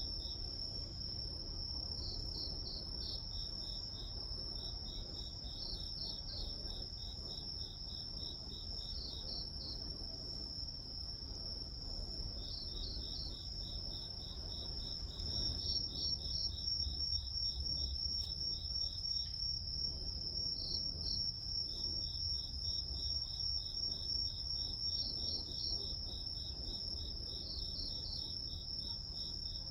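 Grass insects chirping: one insect keeps up a steady, unbroken high trill while another sings in trains of rapid pulsed chirps that start and stop every few seconds, over a faint low rumble.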